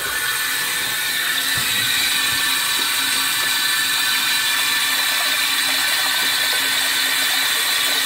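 Mains water hissing through a toilet cistern's float-operated ball valve as the cistern fills after the supply is switched back on, a steady hiss that starts suddenly.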